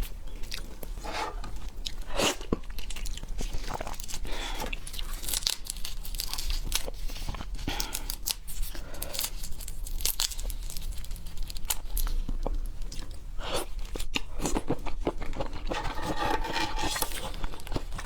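A person chewing and biting into raw seafood, with irregular crunchy, wet mouth sounds.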